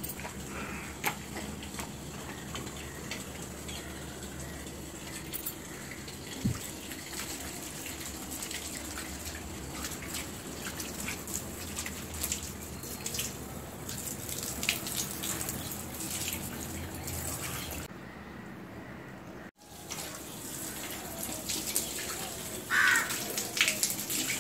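Water running from a garden hose and splashing on a wet concrete bathroom floor, with scattered short splashes from hand-washing clothes in a steel basin. The sound briefly cuts out about three-quarters of the way through.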